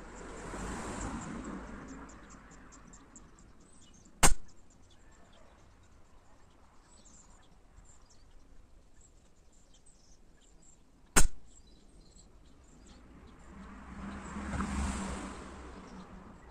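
Two shots from a Gamo Coyote PCP air rifle, about seven seconds apart, each a single sharp crack that dies away at once. Between them a soft rushing noise swells and fades twice.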